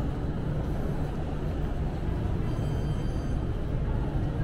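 Shopping-mall ambience: a steady low rumble with a few faint high tones for about a second in the middle.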